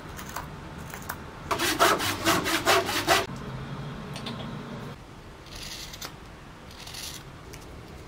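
Hook knife scooping out the bowl of a birch wood blank: a quick run of short, rasping cuts about a second and a half in, then a few fainter scrapes later.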